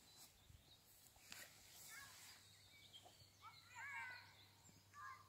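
Faint birdsong: a short run of warbling chirps about four seconds in, over very quiet open-air background with a few light rustles.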